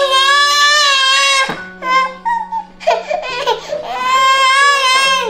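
A toddler crying out in long, high-pitched wails: two long cries with shorter ones in between.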